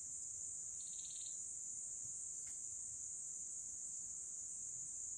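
Insect chorus: a steady high-pitched hum, with a short pulsed trill about a second in.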